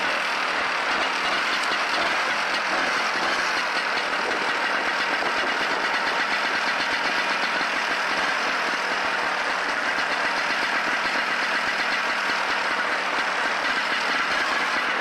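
Vintage Ski-Doo snowmobile's two-stroke engine idling steadily after being started.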